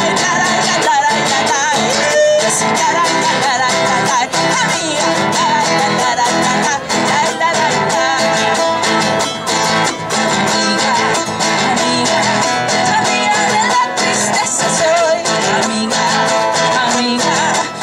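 Live Latin American song: women singing in Spanish over a strummed acoustic guitar and a small guitar-like string instrument.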